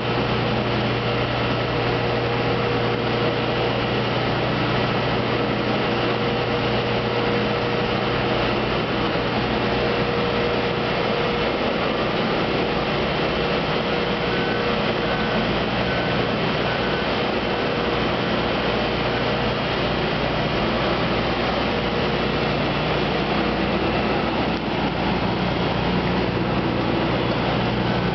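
Steady drone of a running rotary vacuum drum filter installation and its plant machinery, an even mechanical noise with a faint constant hum.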